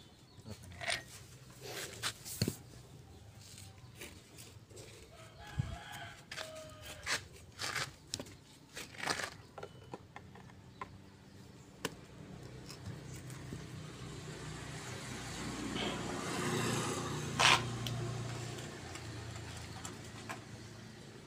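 Scattered light metallic clicks and taps from differential gear parts being handled during assembly, with a bird calling in the background. About three-quarters of the way through, a low rumbling noise swells and fades, with one sharp knock at its loudest point.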